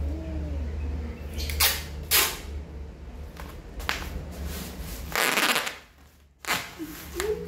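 Brown packing tape being pulled off its roll in several short tearing bursts and pressed onto a parcel of bubble wrap and plastic. A low steady hum runs underneath and stops about five seconds in.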